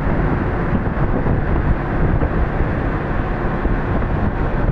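Steady rumble and rush of a roll-on/roll-off ship under way, with wind on the microphone.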